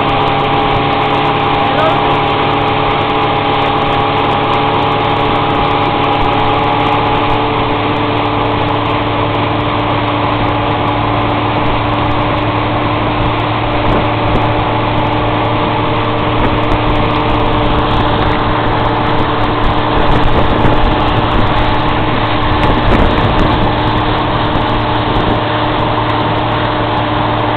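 Tow boat's engine running at a steady speed, a constant drone, over a rush of water and wind.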